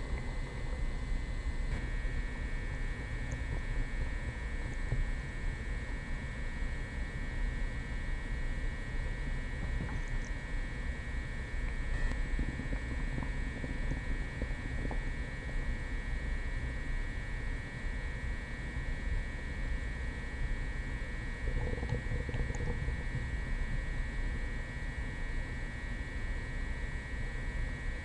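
Steady electrical hum with a constant high whine over a low rumbling noise floor, with faint gurgling from an upset stomach after coffee and prune juice beneath it; one short gurgle stands out about three-quarters of the way through.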